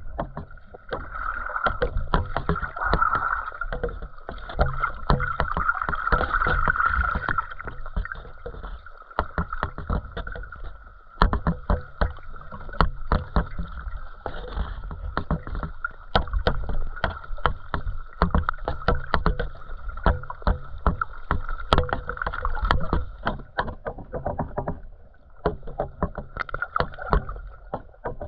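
Underwater sound picked up by a GoPro in its waterproof housing: a low, uneven rumble of moving water with many small clicks and knocks, over a steady high whine.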